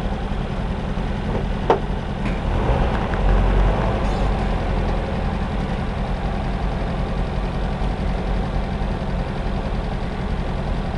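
Vehicle engine idling steadily, with a single sharp click about two seconds in and a brief swell of low rumble a second or so later.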